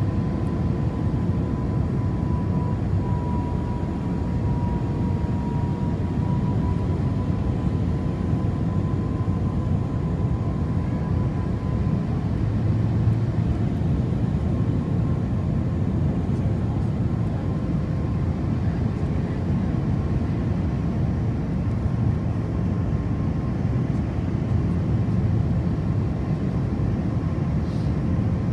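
Airliner cabin noise during the descent: the steady low roar of jet engines and rushing air heard from inside the cabin, with a thin steady whine over it.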